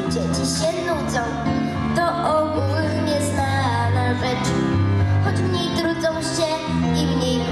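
A girl singing into a microphone with instrumental accompaniment, amplified through outdoor stage speakers.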